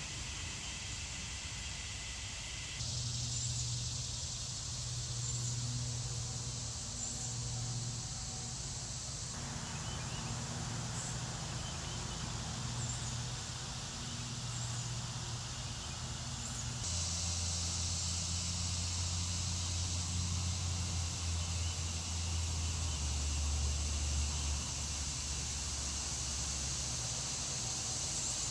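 Outdoor summer ambience: a steady high drone of insects with a few faint bird chirps, over a low rumble. The mix changes abruptly a couple of times.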